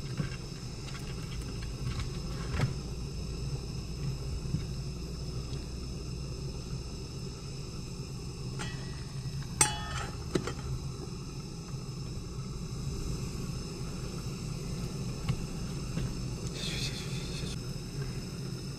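Steady low rush of a small camping gas stove burning under a metal pot, with light knocks and, about halfway through, a ringing metallic clink as the pot lid is lifted by its knob, then a second clink.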